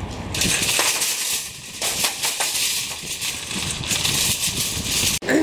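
Empty wire shopping cart rattling as it is pushed across parking-lot asphalt: a steady clattering hiss with scattered clicks, cutting off suddenly near the end.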